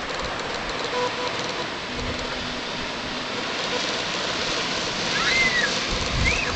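Steady rushing hiss of surf breaking on a sandy beach, with two short sliding bird calls near the end, one rising and falling.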